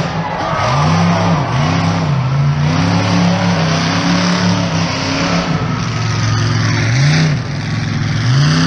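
Monster truck engine revving hard again and again, its pitch climbing and dropping in a string of rev blips with a longer held rev in the middle, over a loud rushing noise.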